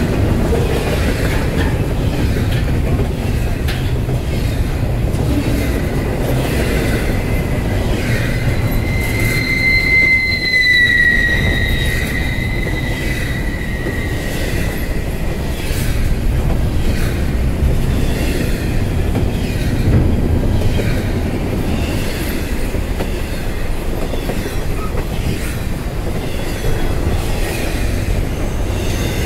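A train passing: a loud steady rumble with scattered wheel clicks. A high metallic wheel squeal runs for several seconds in the first half, sliding slightly lower at its loudest.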